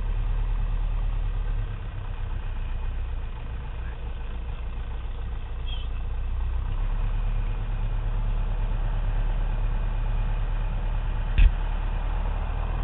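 Piper Cherokee's piston engine and propeller running with a steady low drone, heard through the airframe. The drone dips slightly about two seconds in and picks up again a few seconds later. One brief sharp knock comes near the end.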